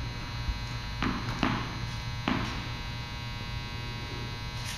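Steady electrical hum made of several even tones, with three soft thuds about one, one and a half, and two and a quarter seconds in.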